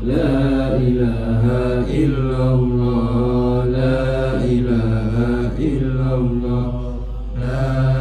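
Group of men chanting Islamic dhikr in unison, a short phrase repeated over and over without a break, the leader's voice carried over a microphone, with a steady low hum underneath.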